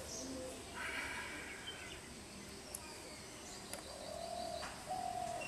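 A person breathing out hard in a short rush of air about a second in, part of an agnisar kriya breathing round. Near the end come two short steady calls from a bird.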